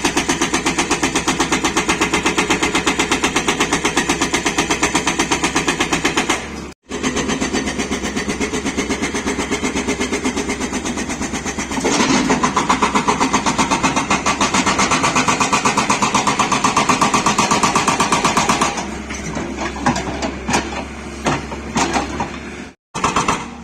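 Hydraulic breaker hammer on a Tata Hitachi 200 excavator pounding very hard stone in a fast, even run of blows over the running diesel engine. The blows get louder about halfway through and stop a few seconds before the end, leaving the engine and scattered knocks.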